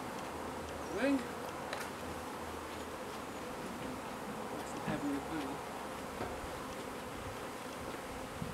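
Honey bees from an opened hive buzzing in a steady hum, with brief louder swells about a second in and about five seconds in.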